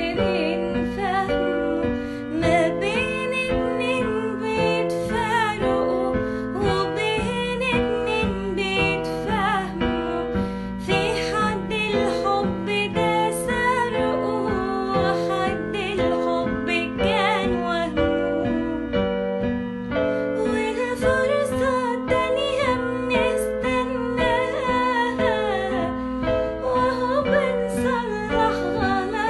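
Arabic song: a woman singing a slow melody with vibrato over keyboard accompaniment with a steady repeating bass line.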